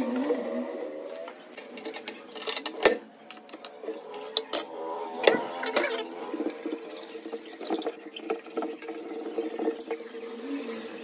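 Plastic aquarium hood and tank rim being handled and wiped, with sharp knocks about three seconds in and again around five to six seconds in, over a steady high tone.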